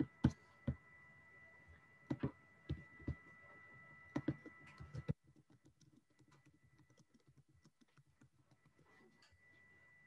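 Computer keyboard being typed on: irregular key taps and clicks, clearer in the first five seconds and then faint.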